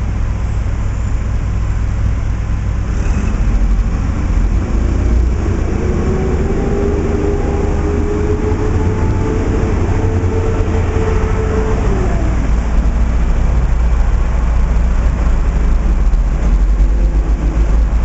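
Street traffic with a steady low rumble, and a passing vehicle's engine hum that swells from about four seconds in and fades away about two-thirds of the way through.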